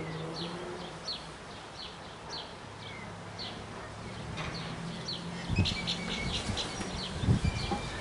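A bird chirping over and over, short high notes about two a second. Low rumbling bursts join in during the second half, like wind on the microphone.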